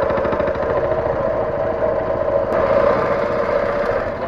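Small tiller-steered outboard motor running steadily, pushing a small aluminium boat along, with a fast even pulsing and a steady mid-pitched drone, a little harder past halfway.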